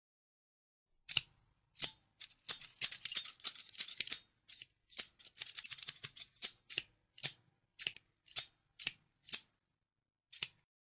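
Scissors snipping in short, sharp cuts. After about a second they come in a quick, irregular flurry, then slow to single snips roughly two a second, with a final pair near the end.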